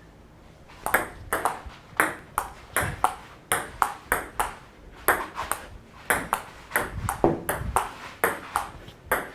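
Table tennis rally: a ping pong ball clicking off paddles and the table, about three hits a second, starting about a second in.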